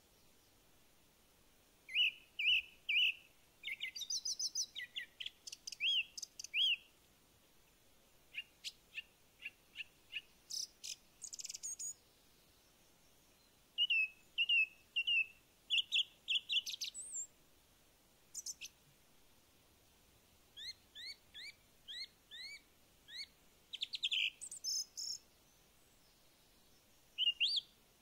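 Small songbirds singing in short bursts of high, quick chirps and trills, with pauses of a second or two between phrases, over a very quiet background.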